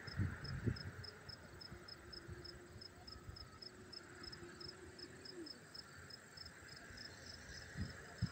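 An insect chirping steadily in the background, short high chirps at about three a second. Low rumbling bumps, the loudest part, come just at the start and again near the end.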